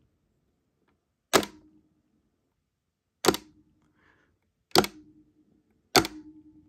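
The plastic handset of a Panasonic corded phone clacks down onto its cradle and hook switch four times, about every one and a half seconds, with a faint low tone lingering after the later clacks. On AC power the hook switch is software-controlled, and with its delay the phone does not hang up every time the receiver goes back.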